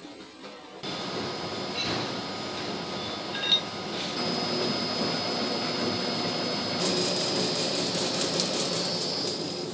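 Machine tool boring steel, with coolant spraying and chips flying off the cutter. It starts about a second in as a steady cutting noise with a high whine, with a sharp click about three and a half seconds in and a rapid ticking from about seven seconds on.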